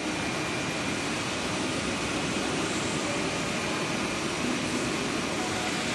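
Steady whir of a standing ICE 3 (class 403) high-speed train's ventilation and cooling equipment, with a faint high whine in it.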